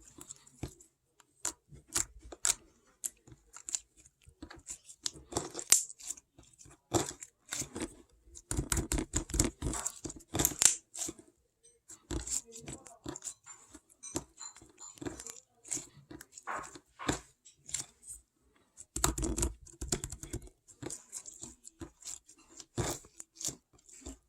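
Kiwi fruit being eaten close to the microphone: irregular chewing, biting and wet mouth clicks, with louder stretches about nine and nineteen seconds in.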